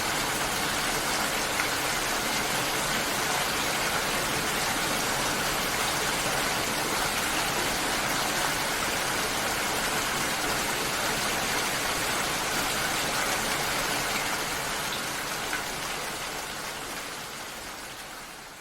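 Steady rain falling, an even hiss of drops that fades out gradually over the last few seconds.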